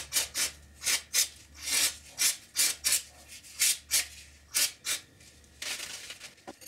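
Rhythmic scrubbing strokes, two to three a second, as a small hand tool cleans old grease out of the bearing bores of a dirt bike's shock linkage. Near the end this gives way to a steadier rustle of paper towel wiping the part.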